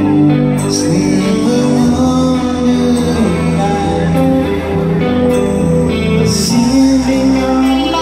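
Live rock band playing a power ballad: sustained guitar chords, drums with a few cymbal crashes, and a male lead vocal sung by the drummer.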